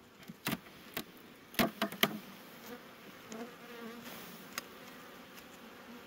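Honeybees buzzing over an open hive. In the first two seconds come a few sharp clicks as a metal wire queen excluder is pried loose and lifted off the box.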